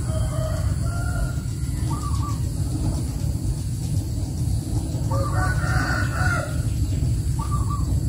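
Chickens calling, with short calls in the first couple of seconds and a longer, louder crow about five seconds in, over a steady low rumble.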